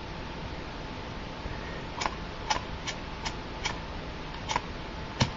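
Piezo igniter of a butane soldering iron clicking about seven times, roughly every half second, as it is being lit; the last click is the loudest.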